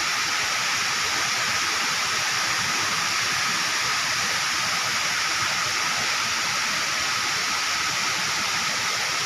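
Steady rushing of water, an even hiss that holds at one level without a break.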